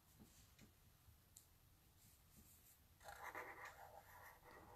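Black felt-tip marker drawn across paper: a faint scratchy stroke sound that starts about three seconds in, with near silence before it.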